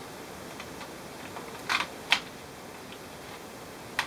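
Light plastic clicks and knocks as a laptop motherboard is handled and seated into its plastic bottom case: a brief rattle a little under two seconds in, a sharp click just after, and another click near the end.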